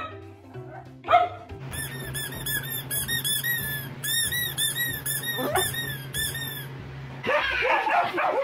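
A dog barks once about a second in. Then a squeaky toy is squeezed over and over, about four squeaks a second for some five seconds, over a low steady hum. Near the end a vacuum cleaner starts running.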